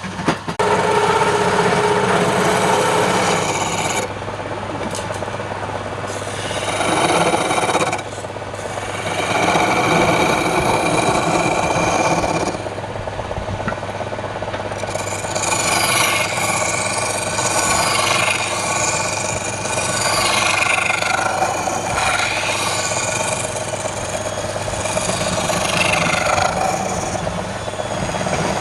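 Wood lathe running with a steady motor hum while a tool works against the spinning wood, giving a rasping, scraping sound that changes in pitch and texture every few seconds as the cut moves.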